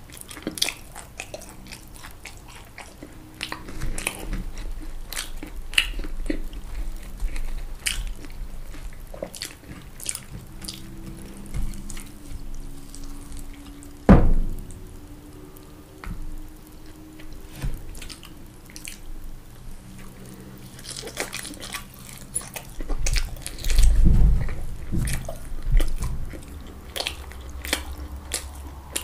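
Close-miked eating: crunchy bites and wet, sticky chewing of fried food, with many small irregular clicks and mouth noises. A single sharp thump about halfway through is the loudest sound.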